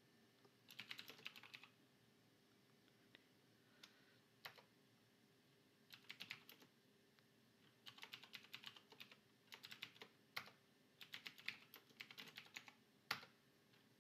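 Faint computer keyboard typing in several short bursts of keystrokes with pauses between, and one harder keystroke near the end.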